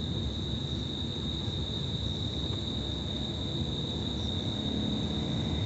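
Crickets chirping in a steady, high-pitched chorus, over a steady low rumble.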